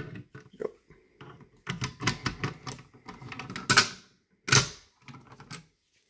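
A quick run of hard plastic and metal clicks and clacks, with two louder knocks past the middle: a folding hex key tool being handled and used to unlock and reset a Fire-Lite BG-12 manual fire alarm pull station.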